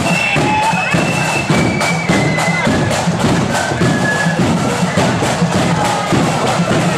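Marching flute band playing a tune: high, held flute notes over rapid snare drumming and bass drum beats.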